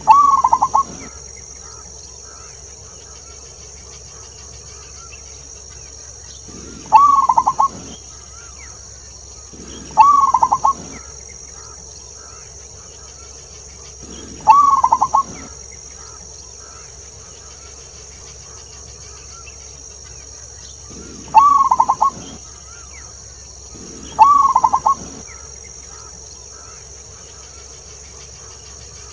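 Zebra dove (perkutut) cooing: six short calls of about a second each, every one a quick run of pulsed coo notes, spaced a few seconds apart. A steady high hiss runs underneath.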